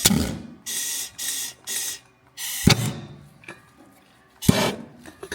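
Flooded four-cylinder gasoline pony motor of a John Deere 720 diesel tractor spitting and popping as fuel burns off in its wet cylinders with a propane torch at work: short hissing puffs about every half second, then a few sharp pops spaced a second or two apart.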